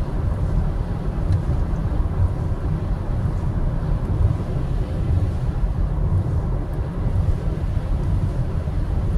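Steady low rumble of road and engine noise inside a car cabin cruising at highway speed.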